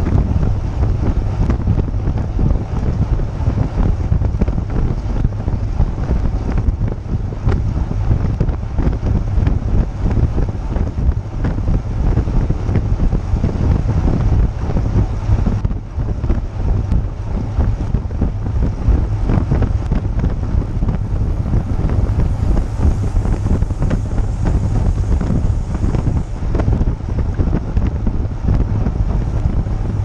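Wind buffeting the microphone of a GoPro mounted on a moving road bicycle: a loud, steady low rumble.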